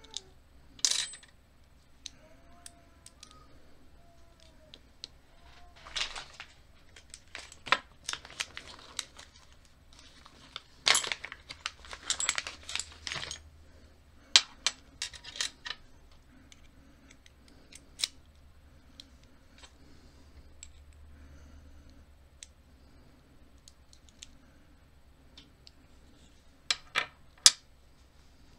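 Scattered clicks and light metallic clinks from the small brass and steel parts of an American Lock 1100 series padlock as they are handled, fitted and set down during disassembly. There are a few quick runs of clicking among longer quiet gaps.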